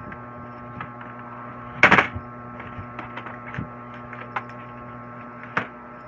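Steady electrical mains hum made of several steady tones. Over it, things are handled on a desk: one loud knock about two seconds in, and a few lighter clicks and taps.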